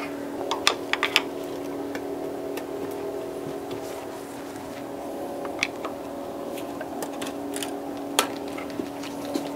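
Scattered light metallic clicks and taps as tools work at the cylinder head of a Honda J35 V6 to free it from the block: a cluster in the first second, then a few single ones later. A steady low hum runs underneath.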